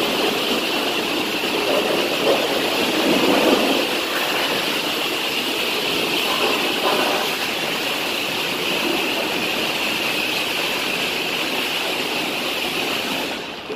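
High-pressure wash spray working over a semi truck, a steady loud hiss of water jetting and splashing that cuts off near the end.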